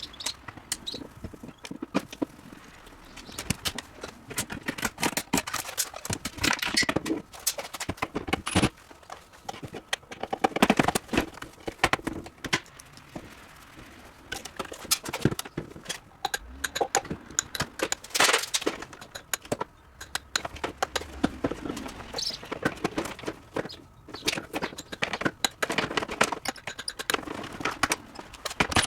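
Irregular knocking and clattering from hands-on clearing work, objects being handled and set down. Dense, quick knocks throughout, with busier stretches about ten and eighteen seconds in.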